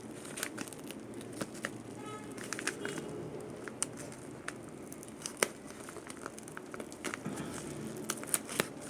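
An envelope being opened and its packaging handled: crinkling and rustling with scattered small clicks and ticks.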